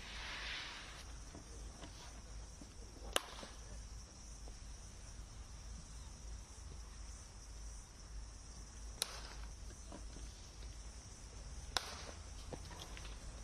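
Cricket bat striking a ball in the practice nets: three sharp cracks a few seconds apart, over a steady high-pitched hiss.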